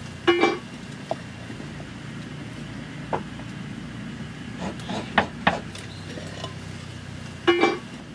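A wooden-handled ladle stirring in a clay cooking pot and knocking against it, about half a dozen sharp knocks, a few with a short ringing tone, over a steady low rumble.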